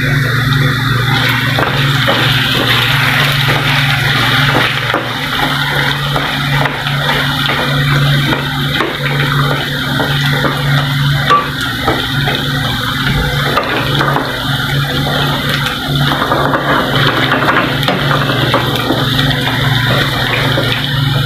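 Sliced carrots deep-frying in hot oil in a nonstick pan: a loud, steady sizzle, stirred with a spatula partway through. A steady low hum runs underneath.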